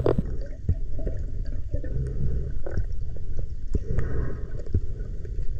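Underwater sound picked up through a camera housing on a scuba dive: a steady low rumble of water moving past, with scattered sharp clicks and small gurgles.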